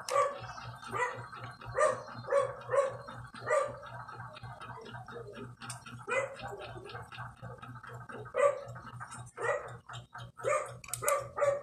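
A dog barking repeatedly, short barks coming in irregular bunches, over a low steady hum.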